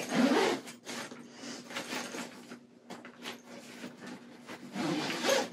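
Rustling and scraping handling noises of a packed fabric travel bag and its contents being shifted and adjusted, loudest at the start, with a faint steady hum underneath.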